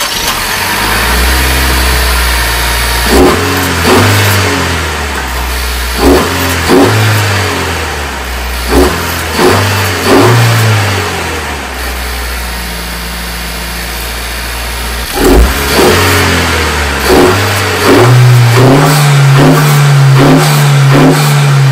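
A 2023 Honda Civic Sport Touring's 1.5-litre turbocharged four-cylinder, fitted with an Injen cold air intake, idling and free-revved. Short throttle blips come again and again, and the revs are held higher for the last few seconds.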